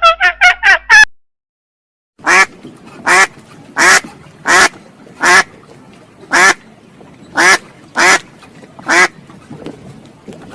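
A duck quacking: about nine loud quacks at a steady pace, under a second apart, with fainter ones after. It starts after a short silent gap, which follows a brief rising animal call that is cut off about a second in.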